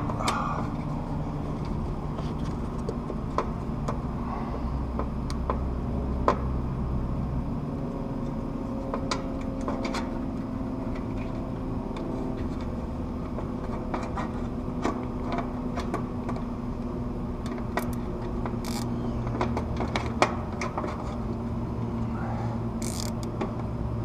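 Scattered light clicks and rattles of capacitor leads and spade terminals being handled in an air-conditioner condenser's control panel, with a couple of short rasps near the end, over a steady low hum.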